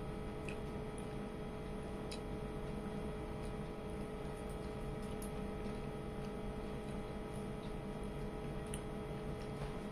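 Steady electrical hum with a few faint, scattered clicks and soft squishes of eating by hand: fingers mixing rice on a plate and chewing.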